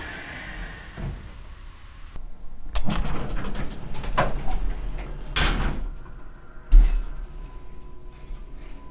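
Elevator doors sliding along, rattling and clattering for a few seconds, then shutting with a heavy thud about seven seconds in; a faint steady tone follows.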